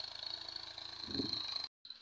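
Tractor engine running steadily as it pulls a tined cultivator through the soil: a low, even chugging with a short louder swell about a second in. The sound cuts off briefly near the end and returns quieter.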